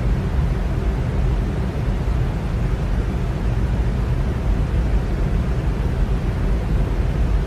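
Electric fan running steadily: an even rushing of air, heaviest in the low range, with a faint low hum underneath.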